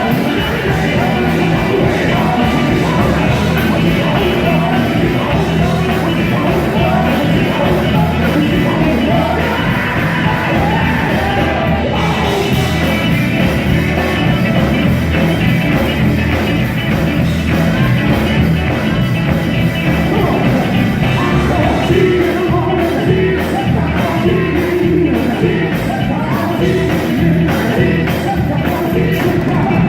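Gospel quartet singing live with a full band: loud lead and backing vocals over bass, drums and a steady beat.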